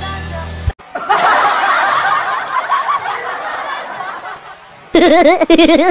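Many people laughing at once, like a sitcom laugh track, fading out after a few seconds, then one person laughing loudly and heartily from about five seconds in. Music in the background cuts off abruptly just before the laughter starts.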